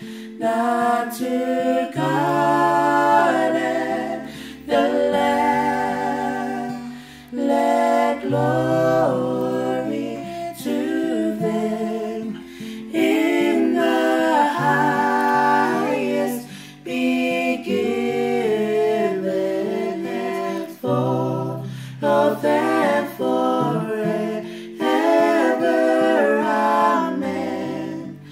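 Two women and a man singing a hymn together to a strummed acoustic guitar, with slow held notes.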